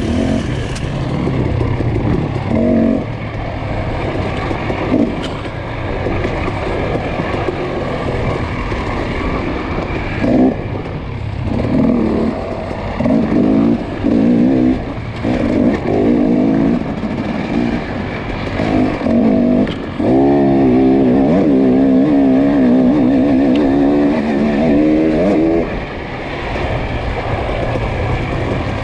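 Off-road dirt bike engine under load, its revs rising and falling with the throttle in short bursts, then held high for about five seconds near the end before easing off.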